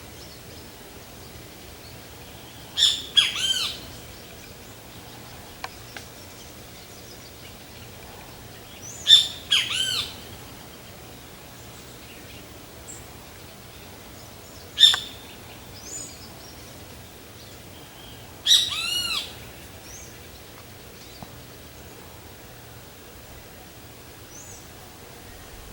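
Great kiskadee (bem-te-vi) calling loudly four times, several seconds apart. Most calls are a harsh two- or three-part phrase.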